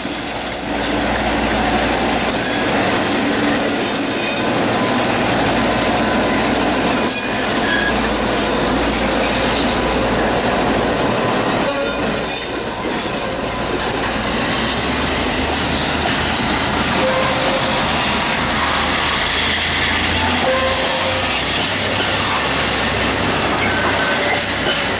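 Freight train passing close by: two KiwiRail DC class diesel-electric locomotives go past first, then a long line of container wagons rolls by with steady wheel and rail noise and a continuous low engine hum.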